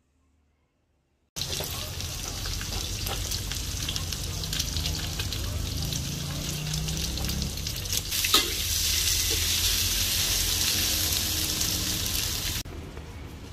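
Food sizzling in hot oil in a pan, with scattered clicks of a utensil stirring. It starts suddenly about a second and a half in, grows louder after a sharp click near the middle, and cuts down to a quieter sizzle just before the end.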